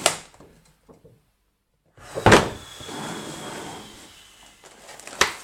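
Cardboard and plastic packaging of a boxed figure being handled: a sharp knock, a louder thump about two seconds in followed by a couple of seconds of sliding, scraping noise as it is moved, then another sharp knock near the end.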